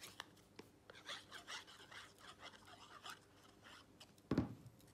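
Light scratchy rubbing as a glue bottle's nozzle is drawn across a paper circle and the card is handled, with one louder knock near the end.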